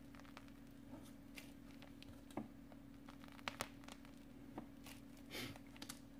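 Faint crinkling and soft clicks from a plastic piping bag being squeezed while whipped cream is piped, over a steady low hum.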